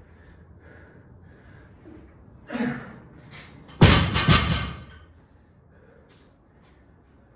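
A short grunt, then about a second later a loaded barbell dropped onto the floor: a loud bang of plates landing, a second hit as it bounces, and a metallic clatter that dies away within about a second.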